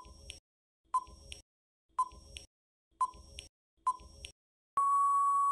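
Countdown timer sound effect: five short beeps about a second apart, then one long, steady beep near the end as the count runs out.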